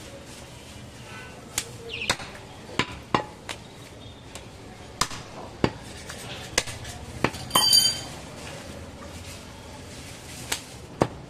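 Sharp knocks of a cleaver striking a wooden chopping block, about a dozen at irregular intervals, with a brief ringing metallic clink about two-thirds of the way through.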